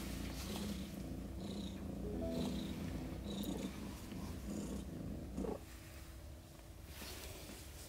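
Mother cat purring during labour, a low continuous purr that drops away about five and a half seconds in.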